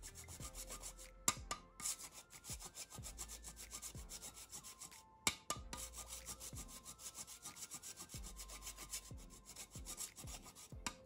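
Block of palm sugar (gula jawa) being grated on a flat metal hand grater: quick, steady rasping strokes, with short pauses about a second in and about five seconds in.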